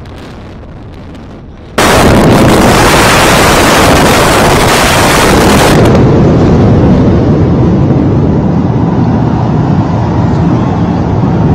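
Controlled implosion of the Supertech twin tower high-rises: a loud, dense roar of the demolition and collapse that sets in suddenly about two seconds in and holds steady, after a quieter rushing noise.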